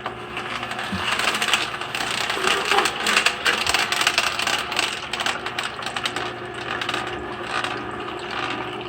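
Electric juicer running, a steady motor hum under a dense crackling, rattling noise of produce being ground.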